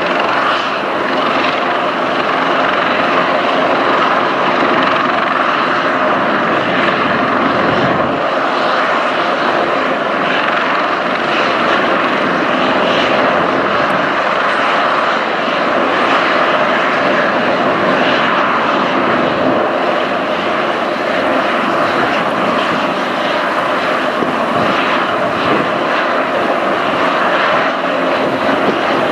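Airbus Helicopters H225 Super Puma's twin turboshaft engines and main rotor running steadily on the ground: a loud, even turbine whine over rotor noise, ahead of take-off.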